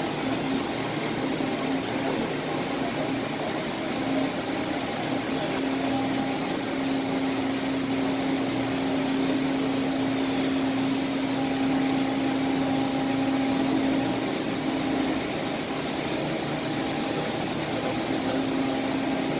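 Steady mechanical droning hum with a held low tone that fades in and out.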